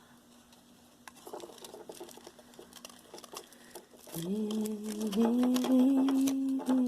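Small clicks and taps of costume jewelry pieces being handled and worked apart. From about four seconds in, a woman hums a few long held notes that step up in pitch and are louder than the clicking.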